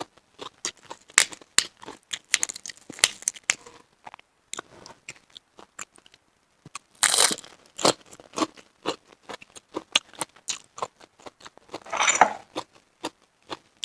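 Close-miked chewing of mountain snail meat: a run of wet clicks and crunches, with two longer rustling, tearing sounds about seven and twelve seconds in.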